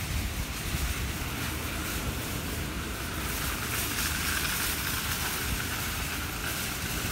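Wind buffeting the microphone, an irregular low rumble over a steady outdoor hiss.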